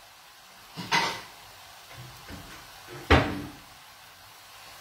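Two sharp clunks of kitchen cupboard doors being shut, about two seconds apart, the second louder, with a few faint clatters between.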